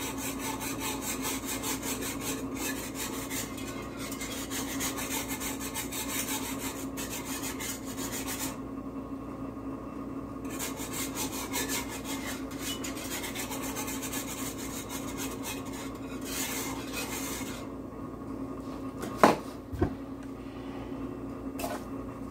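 Wire whisk scraping rapidly around a cast-iron skillet of simmering butter-and-stock sauce, with a short pause partway through; the whisking stops about three-quarters of the way in, followed by two sharp knocks. A steady low hum runs underneath.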